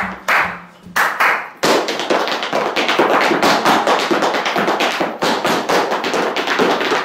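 Tap shoes striking a hard studio floor: a couple of separate beats, then from about a second and a half in a dense, rapid run of taps from dancers working through a routine.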